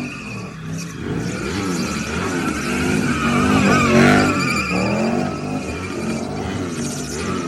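Mercedes W124 E500's M113 V8 revving up and down repeatedly under hard driving, with tyres squealing as the car drifts.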